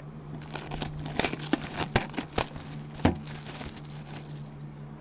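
Hockey card box packaging being handled and opened: crinkling, rustling wrap with a scatter of sharp clicks and taps, over a low steady hum.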